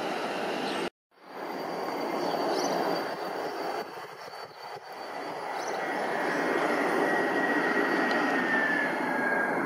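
Jet engines of a twin-engine airliner on final approach with gear down, their roar building as it comes overhead, with an engine whine that falls slowly in pitch over the last few seconds. A brief dropout about a second in marks an edit.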